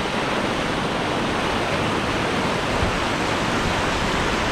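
Steady rush of flowing water from a brook or river, loud and unbroken.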